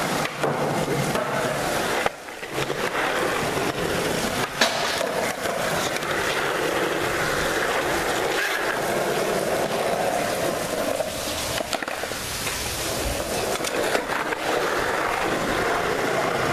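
Skateboard wheels rolling steadily over smooth concrete, with a brief lull about two seconds in and a single sharp knock about four and a half seconds in.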